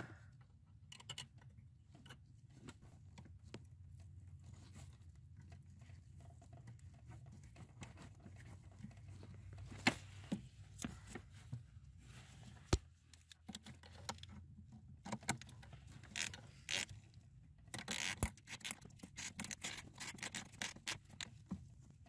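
Faint scattered clicks and scrapes of a gloved hand and a small tool fitting and tightening the 10 mm bolt that holds a pickup's brake light switch under the dash. The clicks come thicker in the last third, over a low steady hum.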